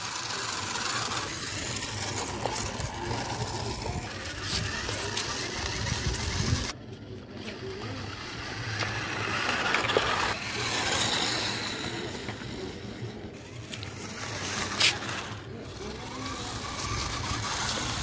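Toy RC rock crawler driving, its small electric drive motors and gears whirring, with its tyres working over the rooftop concrete.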